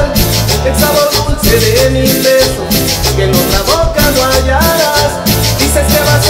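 Dance music from a DJ mix: a steady beat with a heavy bass line, a busy high rhythm on top, and a melody rising in steps.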